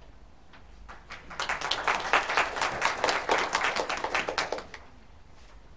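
Applause from a group of people clapping, starting about a second in, lasting about three and a half seconds, then dying away.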